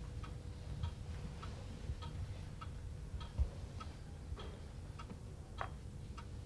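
A clock ticking steadily and faintly, a little under two ticks a second. A soft knock comes about three and a half seconds in and a sharper click about two seconds later, as chess pieces are set down on the board.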